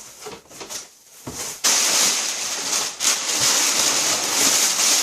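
Packing paper and cardboard rustling and crinkling as a box is opened. A few light rustles come first, then a loud, continuous crinkling starts about a second and a half in.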